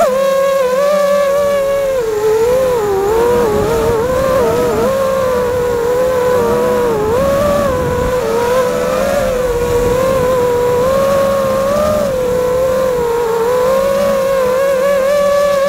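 FPV quadcopter's electric motors and propellers whining, heard from the drone's own onboard camera. The pitch wavers up and down with throttle changes throughout. Wind noise rushes over the microphone through the middle stretch.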